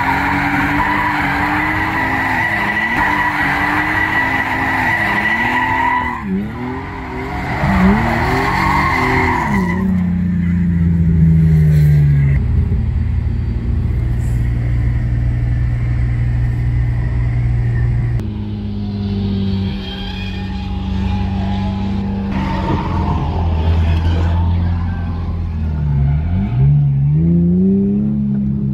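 BMW drift cars: engines revving hard and repeatedly up and down with tyres squealing and skidding through the first ten seconds or so. After that the engines run steadily at low speed without squeal, with one rev rising near the end.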